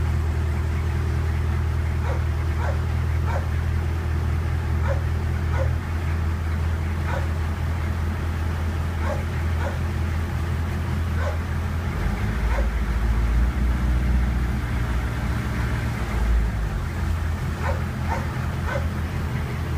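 Chevrolet 6.2-litre diesel of an M1008 CUCV idling, a steady low hum that drops deeper from about twelve seconds in. A dog barks repeatedly over it in short yelps.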